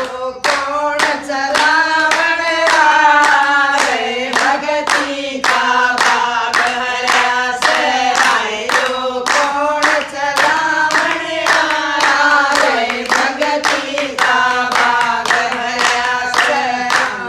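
A group of women singing a Hindi devotional bhajan together, with hand-clapping keeping a steady beat of about two claps a second.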